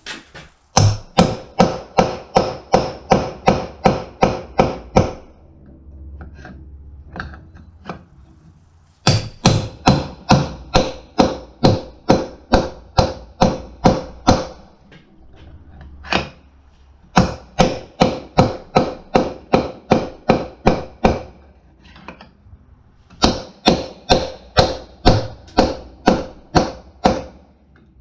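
A hammer on a punch, driving the old bearing races out of a Scag mower's front caster, whose bearings blew apart. Ringing metal strikes come about three a second, in four runs with short pauses between them.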